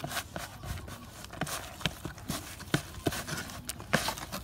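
A hand scooping and stirring a coarse, crumbly feed mixture in a plastic tub: irregular crunching and scraping with sharp clicks, a few a second.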